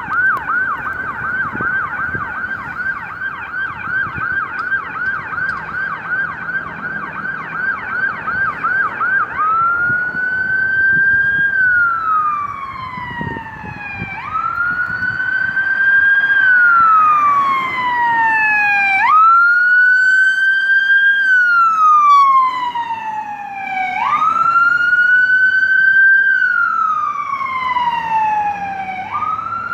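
Ambulance siren, loud. It starts on a fast yelp of about three sweeps a second, then about nine seconds in switches to a slow wail that rises and falls about every five seconds.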